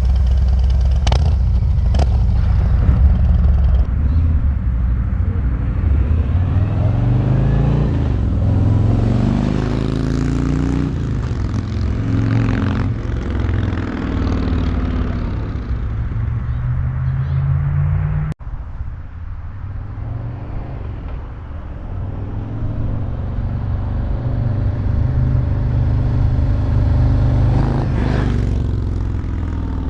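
Harley-Davidson Road Glide's Milwaukee-Eight V-twin running through its stock exhaust as it drives past, accelerating with the engine pitch rising through several gear changes. It cuts off suddenly about two thirds of the way through, then a second pass follows.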